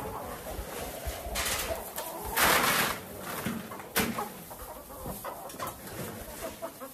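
Cattle feed being scooped and poured from a bin, heard as two short rushes of grain about a second apart, the second the louder, followed by a sharp knock of the scoop or bin about four seconds in, with hens clucking.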